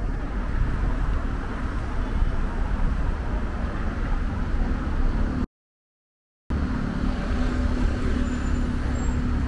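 City street ambience with a steady traffic rumble. The audio cuts out completely for about a second midway, and a steady low hum, like an engine running, comes in during the last third.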